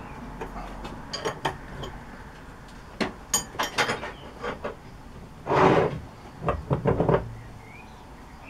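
Metal tools and parts being handled around a lathe during clean-up: a series of light clinks and knocks, with one brief louder rushing or scraping noise about halfway through.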